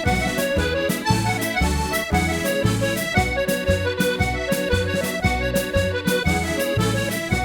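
Accordion playing a Scottish pipe jig, the melody running over a steady, evenly pulsing bass-and-chord accompaniment.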